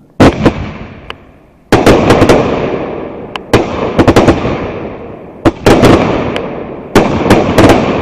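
Fireworks going off in quick groups of sharp, loud bangs. Each group is followed by a long fading rumble of echo, and a fresh group of two to four bangs comes about every one and a half seconds.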